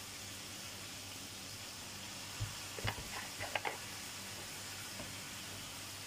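Ground meat sizzling steadily in a frying pan, with a knock and a few brief clinks a little before the middle.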